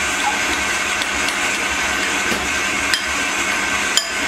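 Metal spoon stirring thick tinned caramel in a glass bowl, with two sharp clinks of the spoon against the glass about three and four seconds in, over a steady whirring hum.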